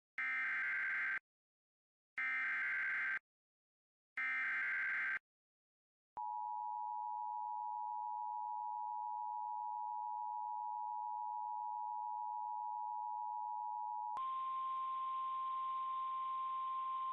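Emergency Alert System alert opening. Three one-second bursts of warbling SAME header data tones come a second apart, then the two-tone EAS attention signal holds steady for about eight seconds. About fourteen seconds in, a single steady alert tone takes over, heard through radio hum and static.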